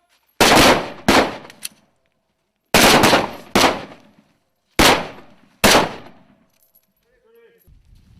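Gunshots fired in a string of about seven sharp reports, mostly in quick pairs, each dying away in a short echo.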